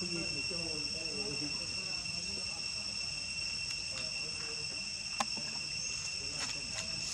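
Insects chirring in a steady high-pitched two-tone drone, with faint voices talking in the first second or so and a sharp click about five seconds in.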